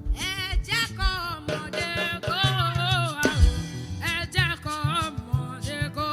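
Music with a singing voice, a steady bass line and drum beats.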